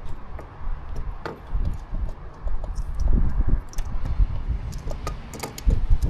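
Scattered light metallic clicks and clinks of tools and motorcycle parts being handled, with a cluster of quick clicks near the end, over low wind rumble on the microphone.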